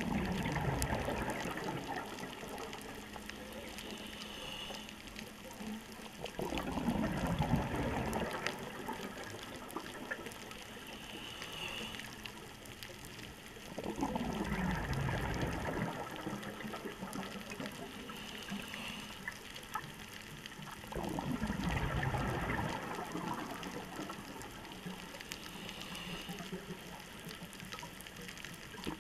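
A scuba diver breathing through a regulator underwater: four rushes of exhaled bubbles about seven seconds apart, each lasting a second or two. Between them comes a short faint hiss of each inhale through the regulator.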